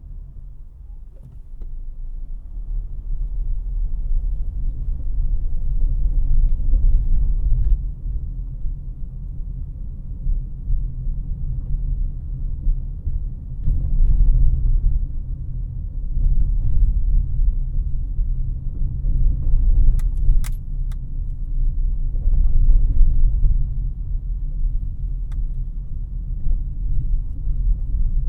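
Inside the cabin of a moving 2018 Honda CR-V LX: a steady low rumble of road and engine noise that grows louder over the first several seconds and dips briefly about eight seconds in. A few sharp clicks come about twenty seconds in.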